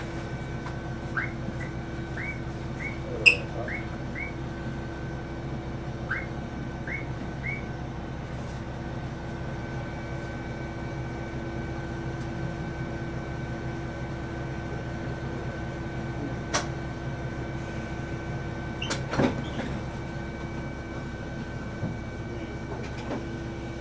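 Steady electric hum of a train, with a few sharp clicks, the loudest about three seconds in, and two short runs of quick rising chirps in the first eight seconds.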